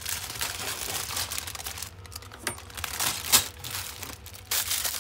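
Plastic LEGO parts bag being torn open and crinkled, in irregular crackling bursts; the loudest burst comes a little past the middle.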